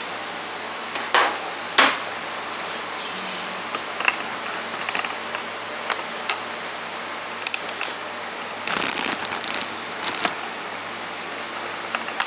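Scattered clicks and knocks of things being handled, sharpest about one and two seconds in, with a short rattling clatter about nine seconds in, over a steady hiss and low hum.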